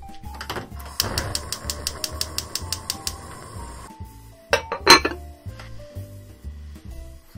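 Gas stove burner being lit: the igniter clicks rapidly, about six times a second for two seconds, over the hiss of gas catching. A few sharp glassware clinks follow near the end, with background music throughout.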